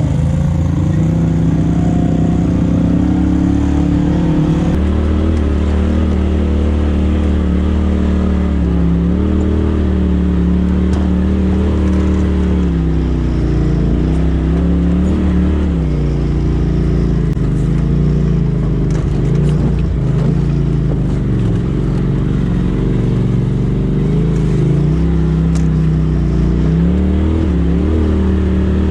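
Engine of a Polaris RZR Turbo S side-by-side running and being revved unevenly, its pitch rising and falling again and again as the throttle is worked over a rough trail, heard from the driver's seat.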